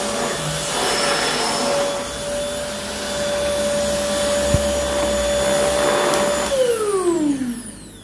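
A 300-watt Notale handheld UV mite vacuum cleaner runs steadily with a high motor whine as it is worked over a shaggy faux-fur rug. About six and a half seconds in it is switched off, and the whine falls in pitch as the motor winds down.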